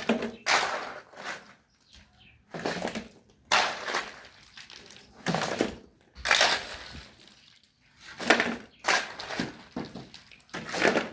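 A shovel scraping and crunching through a mix of stones, sand and cement, about ten rough strokes at an irregular pace of roughly one a second.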